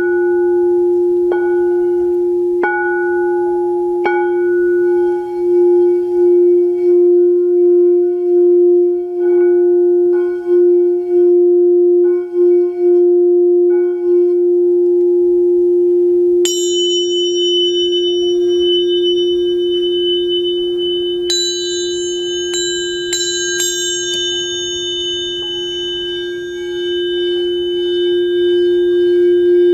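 Rose-quartz crystal singing bowl tuned to F, struck a few times and then ringing in one steady, sustained tone with a slow pulsing. About halfway through, higher bright ringing tones come in with a sudden strike, and several more strikes follow a few seconds later.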